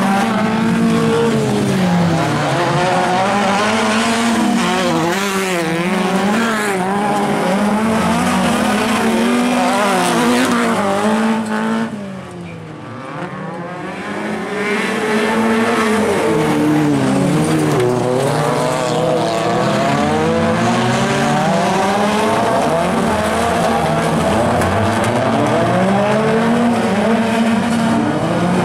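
Engines of several small rallycross cars from the up-to-1600 cc class racing together. Their engine notes overlap, climbing and dropping again and again as the drivers rev through the gears and lift for corners. The sound eases off briefly about halfway through, then comes back loud.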